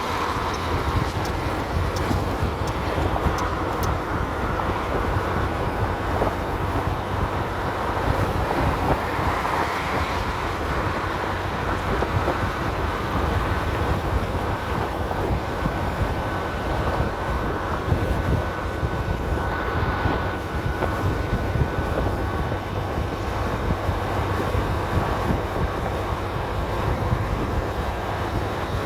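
A 300cc scooter ridden at road speed: a steady rush of engine and wind noise, with a faint high whine partway through.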